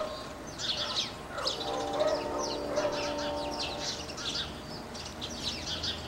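A crowd of small birds chirping at once: many short, high chirps overlapping without a break. A steady low hum runs beneath them for a few seconds in the middle.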